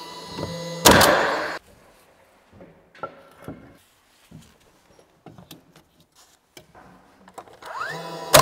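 Cordless nail gun fastening stone veneer panels. One sharp bang about a second in, with a whine that fades over half a second. Then several seconds of light clicks and taps as the panels and level are handled. Near the end a short rising whine as the tool winds up, and it fires again.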